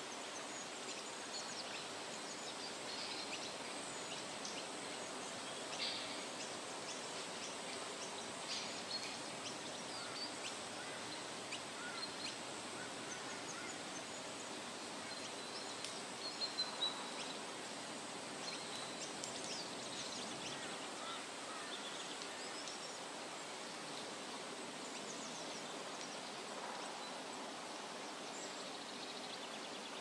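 Small forest stream running over rocks with a steady rushing, while birds chirp and call on and off above it; a quick run of calls about halfway through is the loudest.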